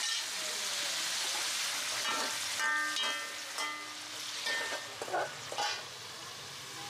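Seafood adobo sizzling steadily in an aluminium wok. It is stirred in the middle with a few short, ringing scrapes of a utensil against the metal pan.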